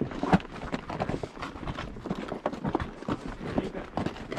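Hooves of several ridden horses clip-clopping along a dirt trail, an irregular patter of hoofbeats a few times a second.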